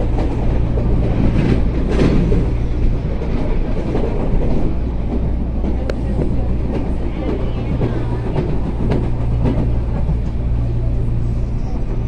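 Electric multiple-unit passenger train heard from inside the car while running at speed: a steady low hum and rumble of the running gear, with occasional sharp clicks from the wheels on the rail joints.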